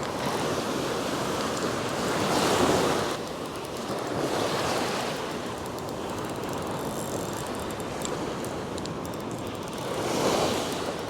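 Ocean surf breaking and washing up the beach, swelling louder about two seconds in, again at about four seconds, and near the end.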